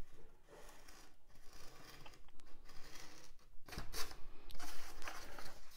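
A pen scratching along the edge of a paper template on Styrodur foam board while tracing its outline, in short irregular strokes, the strongest about four seconds in.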